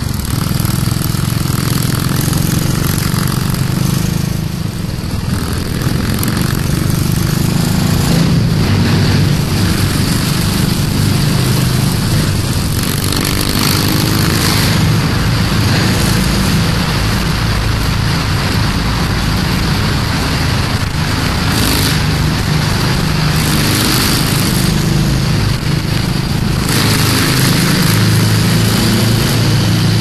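Motorcycle engine running steadily at cruising speed, mixed with heavy wind and road noise. For the middle stretch the ride passes through a road tunnel, where the hiss grows louder and brighter.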